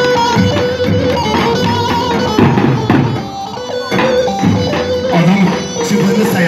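Davul, large double-headed drums, beaten with sticks in a dance rhythm, with a sustained melody line playing over them.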